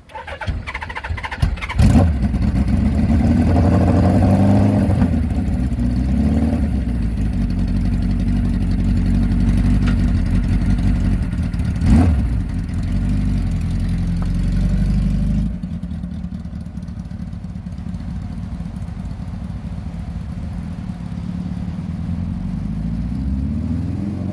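1982 Suzuki GS850's four-cylinder engine starting about two seconds in, then running with a brief rev. A single sharp knock comes about halfway through, and the engine sound drops in level about two-thirds of the way through.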